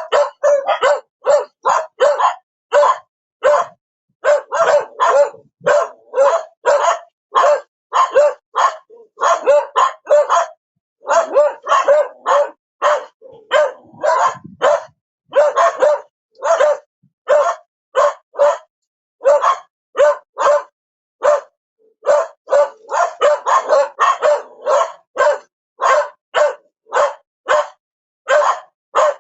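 A dog barking over and over, short barks about two a second in runs broken by brief pauses.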